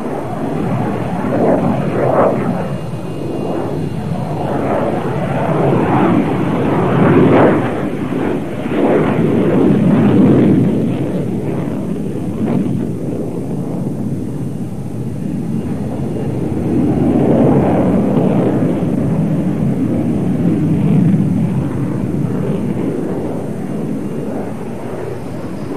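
Dassault Mirage 2000 single-engine delta-wing jet fighter flying a display, its jet roar swelling and fading in waves as it passes and manoeuvres.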